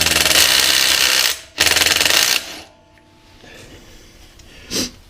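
Impact wrench hammering on a car's 13/16 wheel lug nut to loosen it, in two bursts: about a second and a half, then about a second.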